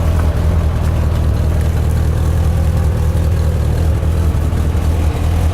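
1984 Corvette's stock 5.7-litre V8 with Cross-Fire Injection idling steadily, with a low, even exhaust note.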